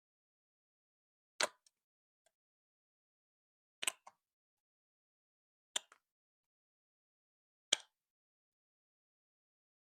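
Plastic Lego Duplo bricks clicking together four times, about two seconds apart, each sharp click followed by a softer second click.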